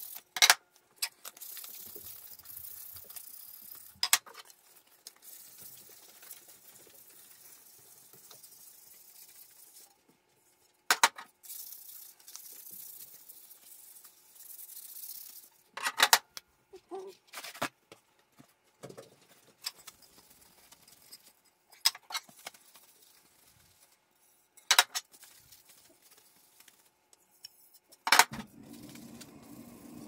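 Hardwood ramp strips being picked up and set down on a table saw top: sharp wooden clacks every few seconds, with a faint hiss in between.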